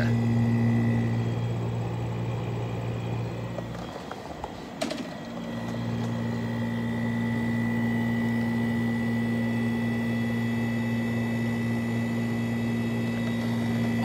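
1960s Westinghouse Mobilaire 7000 BTU window air conditioner running with a steady electric hum. About four seconds in, the hum drops out and a click follows. The unit starts again a second or so later and runs steadily, now with a thin high whine over the hum.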